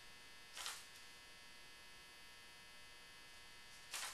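Black powder trickled off a folded sheet of paper into a beam powder scale's pan, heard as two brief soft rustles, about half a second in and near the end, while a 12-grain FFG charge is topped up. Under them, a faint steady electrical hum.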